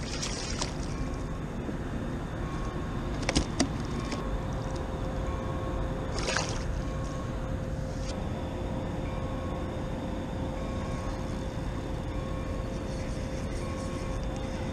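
Steady low rumble of ship and industrial machinery across the harbour water, with a thin steady hum joining a few seconds in. A fish splashes at the surface right at the start, and there are two sharp clicks a few seconds in.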